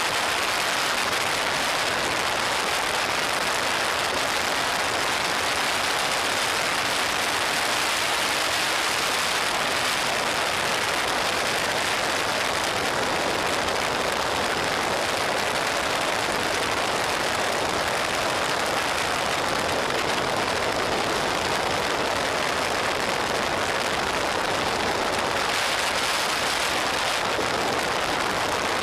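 Steady rush of wind over a motorcycle-mounted camera's microphone while riding at road speed, an even hiss with no clear engine note standing out.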